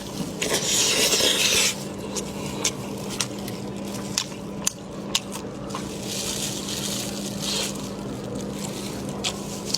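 Close-up eating sounds from a spiced sheep's head: a loud slurp or suck about half a second in, lasting over a second, then scattered wet smacks and small clicks of lips, teeth and bone, and a second, softer slurp around six seconds in. A steady low hum runs underneath.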